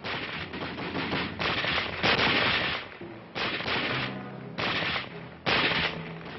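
Small-arms gunfire in bursts, machine-gun fire among it, about five loud bursts of under a second each, the loudest about two seconds in. Low orchestral music comes in underneath in the last couple of seconds.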